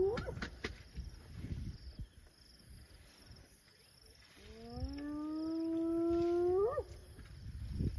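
Spotted hyena whooping. The tail of one whoop sweeps sharply up right at the start. A full whoop comes about four and a half seconds in: it starts low, rises to a steady pitch held for about two seconds, then ends in a quick upward sweep.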